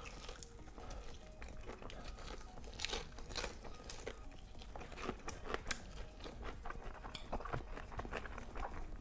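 A person biting and chewing a crispy breaded fried chicken wing: irregular crunches and small clicks from the fried coating.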